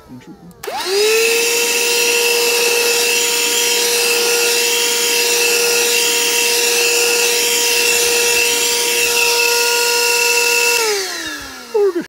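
Ryobi 18V ONE+ cordless hand vacuum switched on, its motor spinning up within about half a second to a steady high whine while vacuuming grit from a doormat. Near the end it is switched off and winds down with falling pitch.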